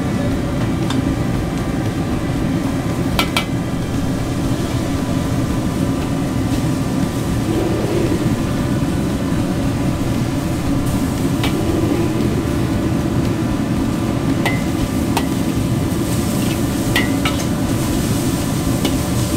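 Commercial gas wok burner running at full flame, a steady low rush under the wok while soy-sauce noodles sizzle. A few sharp metal clicks and taps from the ladle against the wok.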